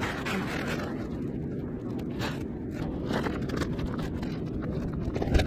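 Fabric rubbing and rustling against a handheld phone's microphone over the steady low hum of an airport check-in hall, with a single thump near the end.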